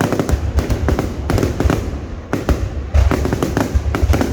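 Fireworks going off in quick clusters of loud bangs and crackles, about five bursts with short lulls between them.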